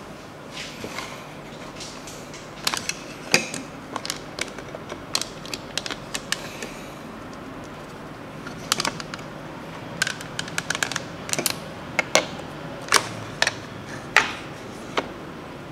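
Hard plastic toy pieces of a Play-Doh ice cream playset clicking and knocking as they are handled, in irregular runs of sharp clicks with a short lull about halfway through.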